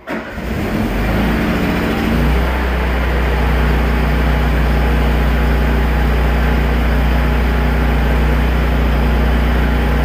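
Lincoln Electric Eagle 10000 Plus engine-driven welder/generator starting up: the engine catches at once, runs unevenly for about two seconds, then settles into a steady, loud run.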